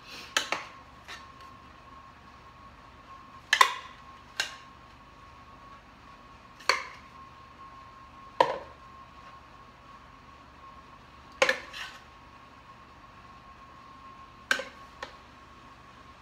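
A spoon knocking and scraping against a plastic food processor bowl and measuring cup as riced cauliflower is scooped out and packed: about a dozen sharp taps and knocks, spaced a few seconds apart.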